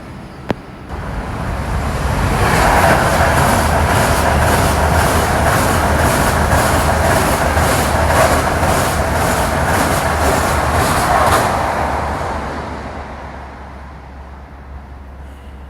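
A high-speed electric passenger train passing through a station. Its rushing noise swells up, holds loud for about nine seconds with an even rhythmic clatter of roughly two to three beats a second, then fades away.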